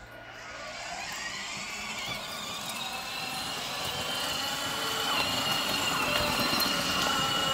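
Electric drive motors and gearboxes of a children's battery-powered ride-on buggy whining, the pitch rising in the first couple of seconds as it picks up speed and then holding steady, growing louder as it comes closer, over the noise of its wheels rolling on asphalt.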